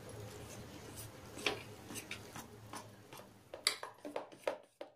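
Metal spoon clinking and scraping against a steel bowl while stirring thick gram-flour (besan) batter, the taps coming faster and louder in the second half, about three to four a second.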